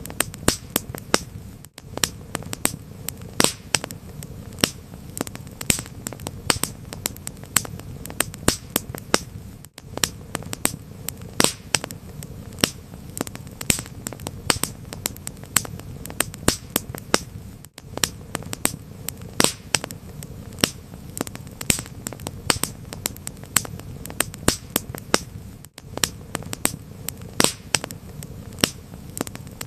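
Wood fire crackling: frequent sharp pops and snaps over a steady low rush of burning. The sound drops out briefly about every eight seconds.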